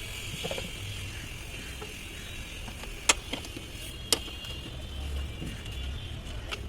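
Mechanic's hand tools working on metal: two sharp clicks about a second apart, over a low rumble and a faint steady high whine.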